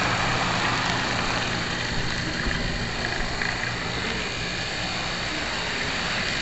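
Model train locomotive running along its track, heard from a camera riding on board: a steady, even running noise from its motor and wheels.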